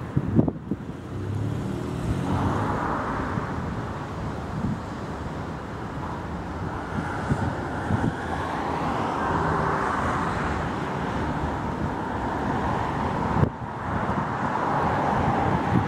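Tatra T3 tram approaching along street track, a steady rolling and running noise mixed with road traffic. Gusts of wind hit the microphone at the start and near the end, and the sound breaks off briefly about half a second in and again near the end.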